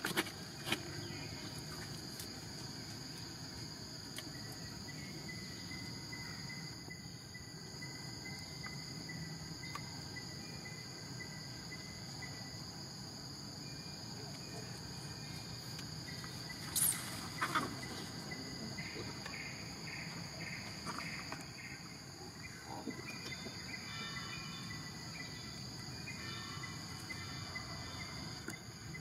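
Insects shrilling steadily in one unbroken high drone. A brief sharp sound comes about 17 seconds in, and short repeated chirps come and go over the last third.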